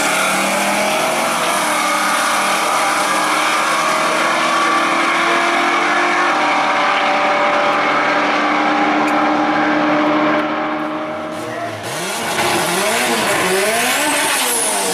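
Two muscle cars accelerating hard side by side down a drag strip at full throttle, their engines a loud, steady, slowly rising note. Near the end a Honda Civic hatchback revs up and down in repeated rising and falling sweeps while spinning its front tires.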